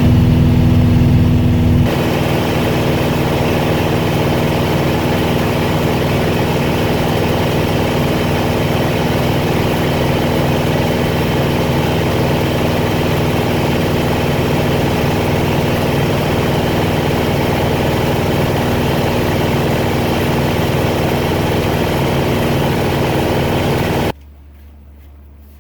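An engine running steadily, its tone shifting slightly about two seconds in, then cutting off abruptly near the end.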